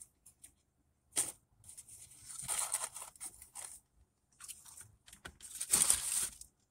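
Paper food packaging crinkling and rustling in several irregular bursts, loudest near the end.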